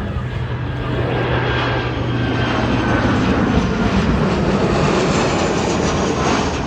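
Boeing P-8 Poseidon's twin CFM56 turbofan engines during a low flyover: loud, steady jet noise that grows louder over the first few seconds and holds as the aircraft passes.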